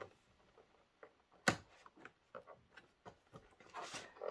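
Faint clicks and taps of hands handling a cardboard box with a clear plastic insert, with one sharper click about a second and a half in and a brief rustle near the end.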